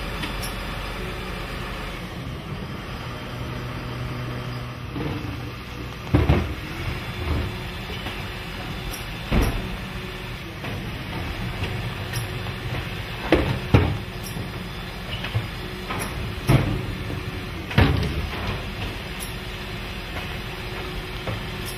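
Garbage truck with a Zoeller Medium XL body running, its engine and hydraulics giving a steady hum, with sharp loud bangs every few seconds, two close together near the middle.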